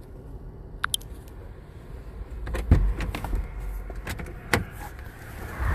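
A few sharp clicks and knocks at a stopped vehicle over a low steady rumble, the loudest about two and a half seconds in and again about four and a half seconds in.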